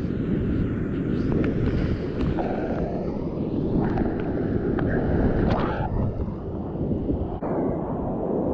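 Whitewater rushing steadily, with a heavy low rumble on the microphone and scattered short splashes.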